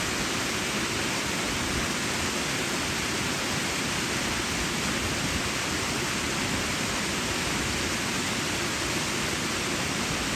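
Water spilling down a concrete weir face and splashing into the pool at its foot: a steady, even rush of falling water.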